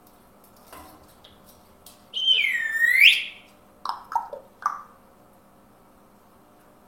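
A loud, high whistle-like call that dips in pitch and rises again, lasting about a second, followed by three short, lower chirps.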